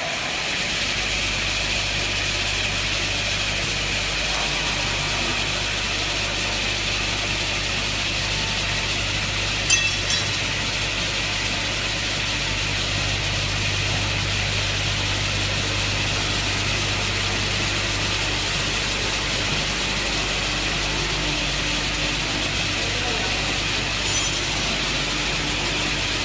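Double-head aluminium cutting saw with 450 mm blades running steadily at speed, with a brief clack about ten seconds in and again near the end.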